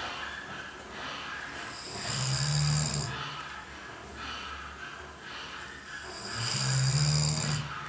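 A man snoring heavily in his sleep: two loud, low-pitched snores, each about a second long and some four and a half seconds apart, with softer breaths between.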